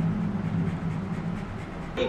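Parmesan rasped on a long rasp grater, faint scraping strokes over a steady low hum.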